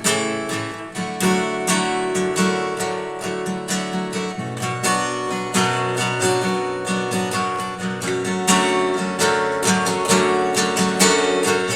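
Acoustic guitar strummed in a steady rhythm, playing the chords of an instrumental break in a song.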